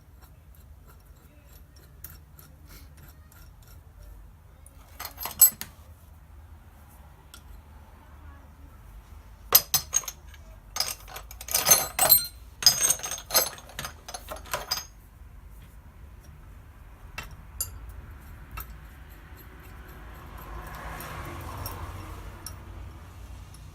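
Metal hand tools clinking and rattling as they are rummaged through in search of the right one: a short jingle about five seconds in, then a longer run of clinks from about nine to fifteen seconds.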